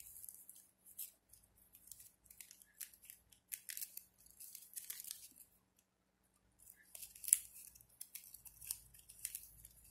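Stiff, shiny ribbon crinkling and crackling in quick, irregular little bursts as it is folded and tucked by hand. There is a brief pause around six seconds in and one sharper crack just after seven seconds.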